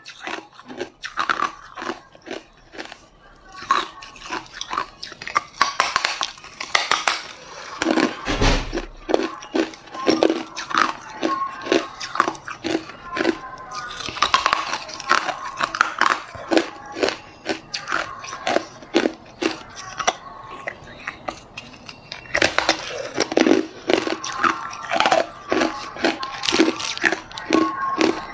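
Hard clear ice being bitten and chewed: a run of sharp, irregular cracks and crunches as the ice breaks between the teeth.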